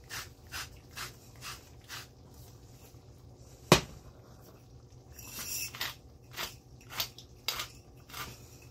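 Hand-twisted salt and pepper grinders grinding over a pan in short twists, about two a second. Near the middle a single sharp click as the stove's control knob is turned off.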